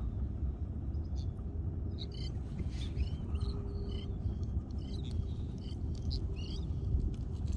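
Steady low wind and sea rumble on the microphone, with a few faint, short bird chirps scattered through the middle.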